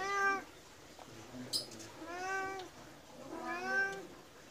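Persian cat meowing three times, each meow short with a pitch that rises and falls: the cat is begging for food.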